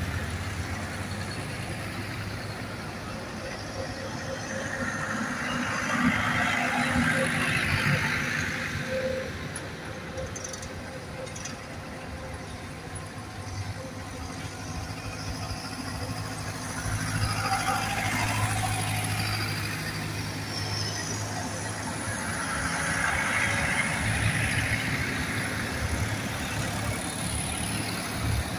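Tractors driving past one after another on a tarmac road, their engines running and their tyres on the road swelling and then fading with each pass. The three main passes come at about five, seventeen and twenty-three seconds in, with a quieter gap between the first two when the road is empty.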